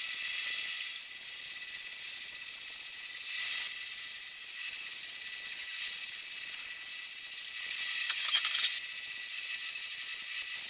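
Aerosol spray paint cans hissing in bursts, near the start, about three and a half seconds in and most strongly about eight seconds in, over a steady high background hiss.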